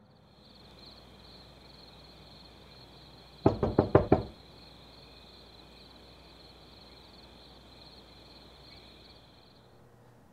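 A quick run of about five sharp knocks on a door, about three and a half seconds in, over night insects chirring steadily.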